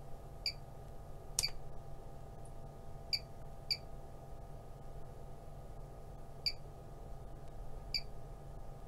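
Short, high beeps from a bench DC electronic load as its setting knob is turned to step the load current, about six in all, spread irregularly, with one sharper click about a second and a half in. A steady low hum from the bench equipment runs underneath.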